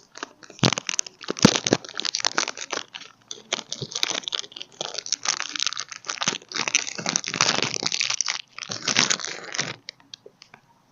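Plastic packaging crinkling and crackling as it is handled and unwrapped, a dense run of crackles that stops near the end.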